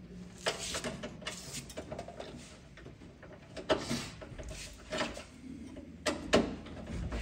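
Screwdriver and hands working screws out of the sheet-metal PCB cover of an inverter split AC's outdoor unit: a handful of separate clicks and short metallic scrapes, the loudest about six seconds in.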